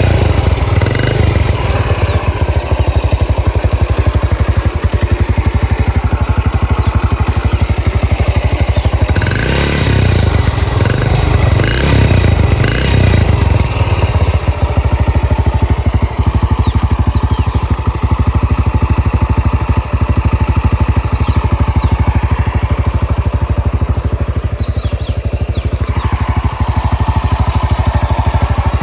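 Bajaj KB 4S Champion's two-stroke single-cylinder engine idling loudly at the exhaust, with a few quick throttle blips about ten to thirteen seconds in.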